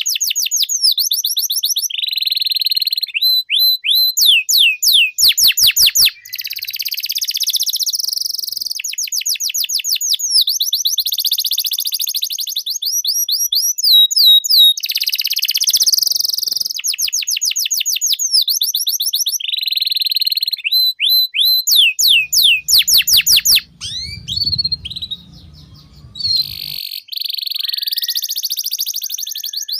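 Domestic canary singing a long, continuous song: fast trills of repeated notes, quick falling sweeps and buzzy rolls, one phrase straight after another. A low rumble sits under the song for a few seconds in the second half.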